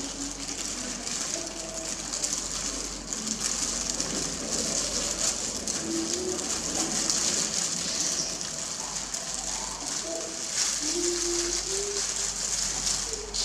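Plastic food-prep gloves crinkling and rustling as hands roll a rice-paper spring roll. Short low cooing calls come and go underneath.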